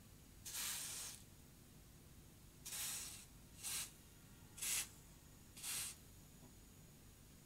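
Aerosol freeze spray squirted through a red extension straw in five short hisses, the first the longest. It is chilling capacitors on a circuit board to trace a temperature-sensitive fault.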